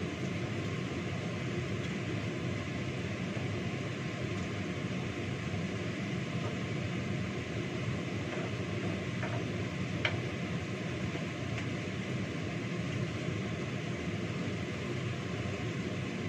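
Stone pestle grinding a mortar full of chili-tomato sambal, with a steady rushing noise throughout and a few faint knocks around the middle.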